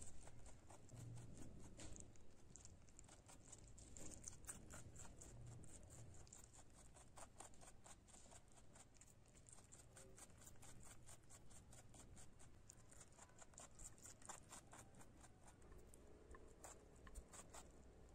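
Rabbits chewing shredded cabbage leaves: a quick, uneven run of faint, crisp crunching clicks.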